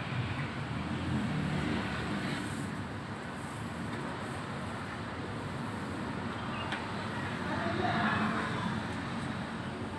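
Steady road-traffic noise, swelling a little about a second in and again near the end.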